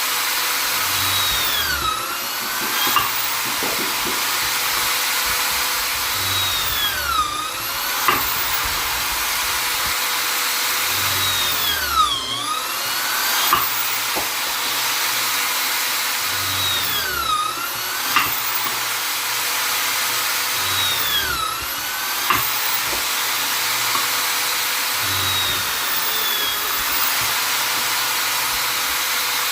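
Vonder electric drill/driver running continuously, its motor pitch dipping sharply and climbing back about every five seconds, with a few short knocks.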